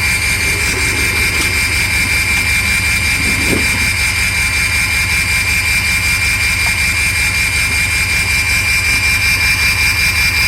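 2003 Ford Excursion's 6.0 V8 turbodiesel running steadily, with a steady high whine over the engine's rhythmic beat. The engine has a misfire that the owner puts down to the #5 injector, which shows low voltage and low cylinder contribution.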